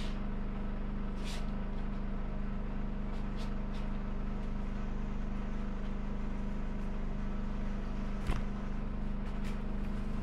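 Steady machine hum, like an engine running, with a few faint light clicks and a sharper knock about eight seconds in.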